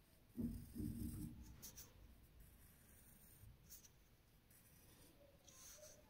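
Graphite pencil sketching on drawing paper: faint, short scratching strokes every second or two. A soft low bump about half a second in is the loudest sound.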